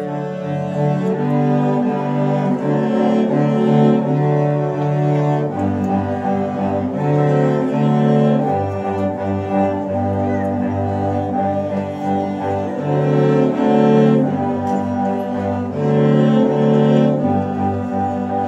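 A youth cello ensemble playing together, bowed notes held and changing in a steady rhythm. The playing starts right at the beginning.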